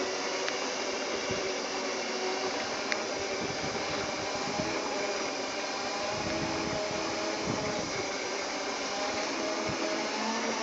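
Segway PT's electric drive motors and gearboxes whining steadily in several pitches that drift gently up and down with speed, over a steady hiss.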